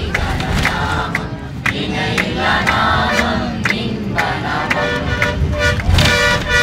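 A group of voices singing with a sharp beat about twice a second, over the low rumble of a moving bus.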